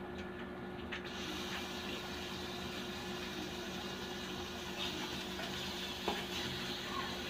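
Pork slices sizzling on a hot grill pan, a steady hiss that starts about a second in as meat goes onto the pan. A few light clicks of metal tongs.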